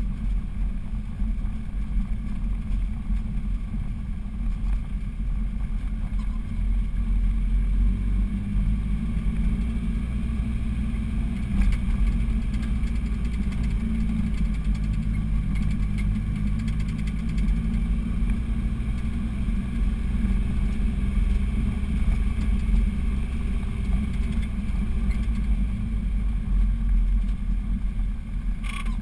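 Car engine heard from inside the cabin, running under load as the car climbs a steep hill, its low drone rising and falling in pitch with the throttle. A short sharp sound near the end.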